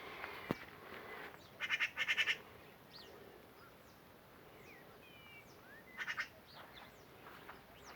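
Birds calling: two bursts of rapid, harsh repeated notes, one about two seconds in and one about six seconds in, with scattered short chirps between them.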